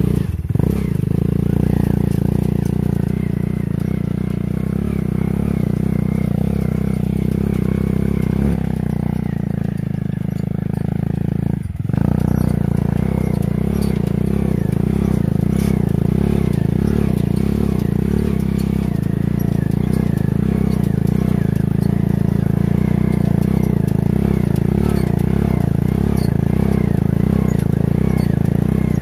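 Small motorcycle engine running steadily in a homemade four-wheel ATV. There is a short break about twelve seconds in, then it runs on.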